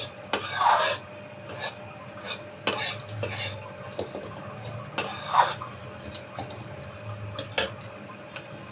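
Steel spatula stirring and scraping roasted gram flour (besan) around a steel kadai, in irregular strokes with clinks of metal on the pan. The strongest scrapes come about a second in, around three and five seconds in, and near the end.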